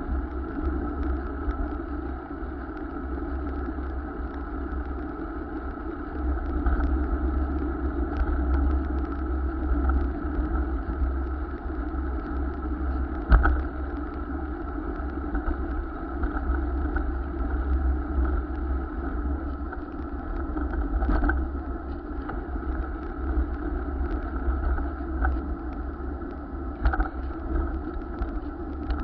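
Steady road noise from riding a bicycle, with wind buffeting the microphone as a fluttering low rumble. A few light clicks come through now and then.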